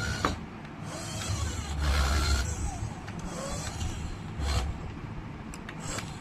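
Small electric motor of a toy RC car whirring in short bursts, its pitch gliding up and down, with scattered clicks.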